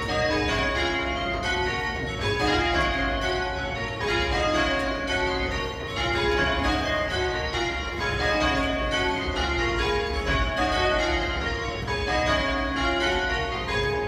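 Change ringing on a light ring of eight church bells cast by John Taylor & Co in 1968, tenor about 4¼ cwt. The bells strike one after another in quick, even rows, their tones overlapping.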